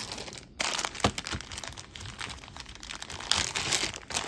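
Packaging crinkling and rustling as jewelry is handled, starting about half a second in, with a few sharp clicks through it.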